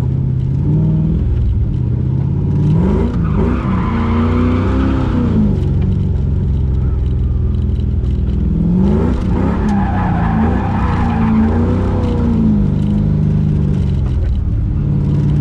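LS V8 in a Miata NB, heard from inside the cabin while the car drifts. Twice the revs climb and fall quickly while the tyres skid: once a few seconds in, and again past the middle. Between those two spells the engine runs more steadily.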